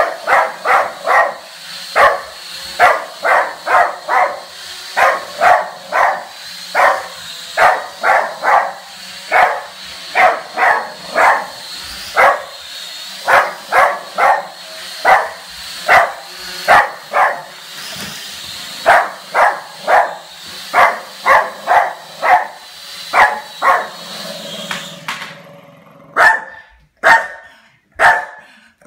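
Small dog barking repeatedly in quick runs of short, sharp barks, over the steady high whine of a toy quadcopter drone's propellers. The drone whine stops near the end as it lands, and a few more barks follow.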